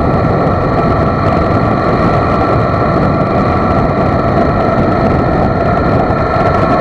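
Motorcycle cruising at highway speed: steady, loud wind rush on the microphone over the running engine, with a few steady high whining tones.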